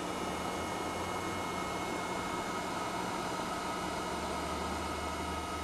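Small cooling fans in an electronics enclosure running steadily: a constant whir with a low hum and a thin, steady high tone.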